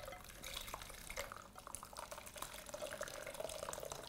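Hot bacon-and-vegetable stock poured from a pot through a wire-mesh sieve into a plastic measuring jug: a faint trickle and splash of liquid, with a steady filling tone from about a second in.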